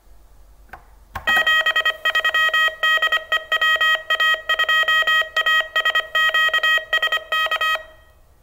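Morse code: a steady-pitched beep keyed on and off in short and long marks, starting a little over a second in and stopping just before the end.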